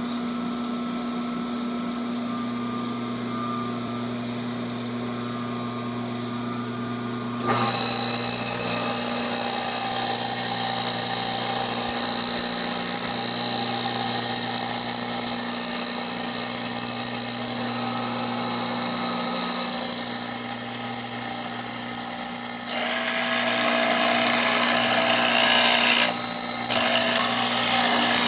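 Old J.A. Fay & Egan drill press running, its electric motor giving a steady hum. About seven seconds in, a much louder, high-pitched drilling sound starts as the hollow square mortising bit bores into a wooden board, and it carries on with small changes in level near the end.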